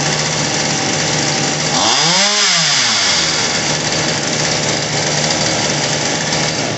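Homelite Pro 4620C 46cc two-stroke chainsaw engine idling, with one brief rev about two seconds in that rises and falls back to idle. Its fast idle is being brought down by turning the carburetor's mixture screw richer on a new carburetor.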